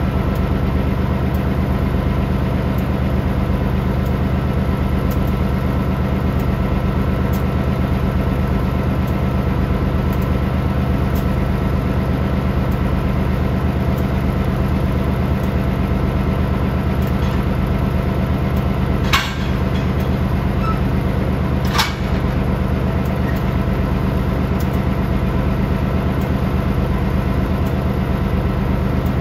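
Diesel locomotive engine idling steadily with a low, even hum. Two short sharp clicks sound about two and a half seconds apart past the middle.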